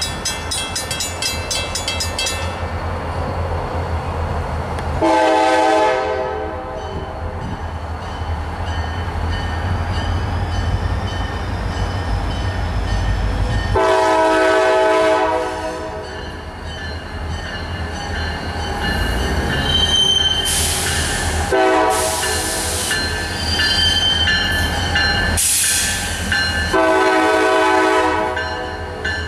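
Train's multi-chime air horn sounding four blasts, the third shortest, in the long-long-short-long pattern for a grade crossing, over the steady low rumble of the passing train. High squeals from the wheels come and go in the second half.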